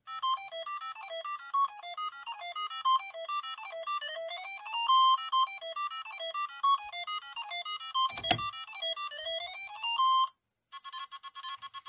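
Single-voice beeper melody of fast, short notes with rising and falling runs, played through the IBM PC Convertible's built-in speaker, with a sharp click about eight seconds in. The tune stops just after ten seconds, and a rapidly repeating trill-like tone pattern begins.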